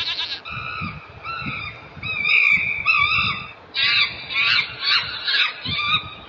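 Chimpanzee calling: a series of high-pitched calls that break into a faster, louder run of screams about four seconds in.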